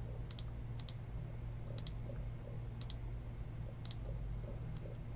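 Computer mouse button clicking about six times at uneven intervals, each click a quick double tick of press and release, as a web page button is clicked over and over. A low steady hum runs underneath.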